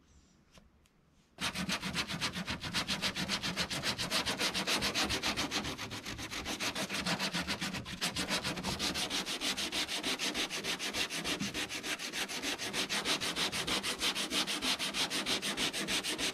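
Body filler on a car's rear quarter panel being hand-sanded with a sanding block: quick, even back-and-forth strokes, several a second, starting about a second and a half in.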